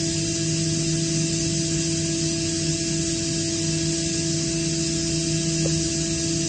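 Atlas Copco GA26VSD+ oil-injected electric rotary screw air compressor running: a steady rush of air with a constant, unchanging hum underneath.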